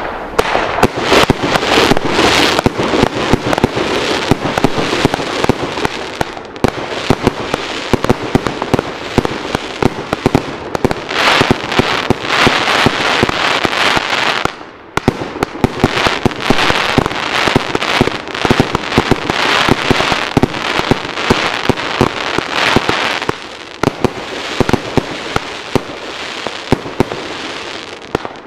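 Iskra Witaj! 100-shot, 30 mm compound firework cake firing: a rapid, continuous stream of launch bangs and crackling bursts, with one short lull about halfway through.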